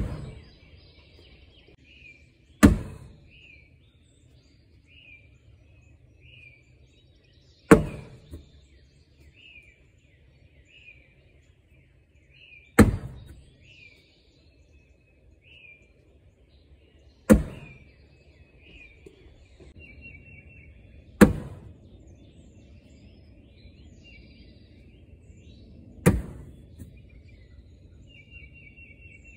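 Cornhole bags landing one at a time on a wooden cornhole board: seven sharp thuds, about one every four to five seconds, each trailing off briefly. Songbirds chirp quietly in between.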